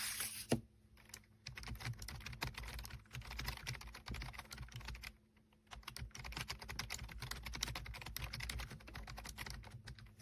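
Typing on a Logitech K380 Pebble keyboard: a fast run of key clicks, a short pause about halfway through, then more typing. It opens with a brief rustle and a single knock, the loudest sound here.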